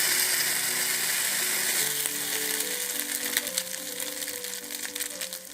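Beaten egg frying in hot oil in a miniature pan: a loud sizzle that slowly eases off into scattered crackles and pops. Soft background music plays underneath.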